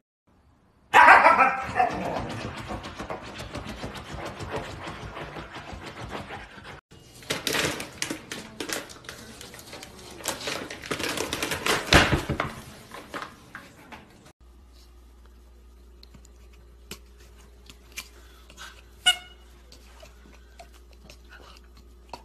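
A Siberian husky vocalizing, loudest about a second in and trailing off over the next few seconds. From about seven seconds a food bag crinkles and rustles as a kitten plays with its head inside it. Near the halfway point this gives way to a steady low hum with a few short, sharp clicks.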